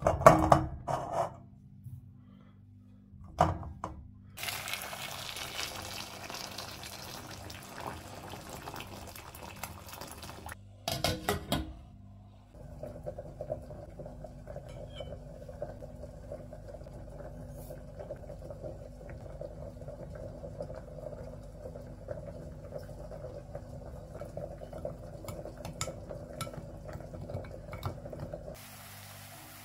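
Potatoes knocking against a steel cooking pot, then water running into the pot for about six seconds. Later a metal spoon clinks against a glass bowl and stirs the spices and oil. A faint steady low hum runs underneath.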